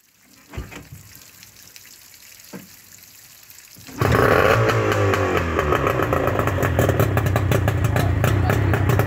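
Yamaha 40 HP two-stroke outboard motor being pull-started: it catches suddenly about four seconds in and runs with a rapid popping beat, a little higher at first, then settling. It is running out of the water on a garden-hose water supply.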